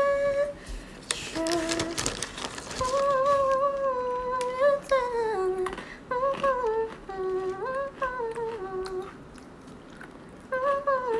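A woman humming a slow tune, holding long notes that slide between pitches, with a short break near the end. A brief noisy rustle sounds about a second in.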